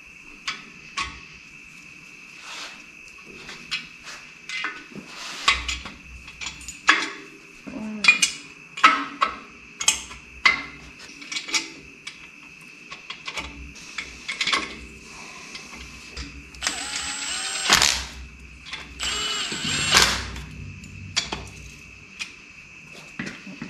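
Metal engine parts clinking and knocking as main bearing caps are set back on an LS engine block. A power tool runs the cap bolts in during two short runs of about a second each, about two-thirds of the way through.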